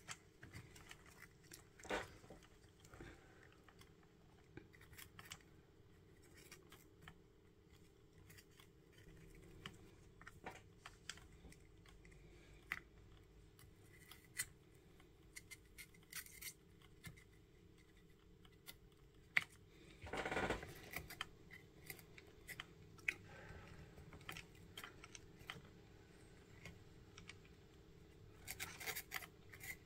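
Faint scratching and small clicks of copper desoldering braid and a soldering iron tip worked against the solder pads of a circuit board, with a louder rustle about twenty seconds in, over a faint steady hum.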